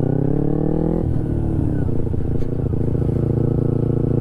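2012 Kawasaki Ninja 250R's parallel-twin engine with an aftermarket LeoVince exhaust, pulling up from low revs with its pitch rising. About a second in the note drops off abruptly, and the engine then runs steadily at lower revs.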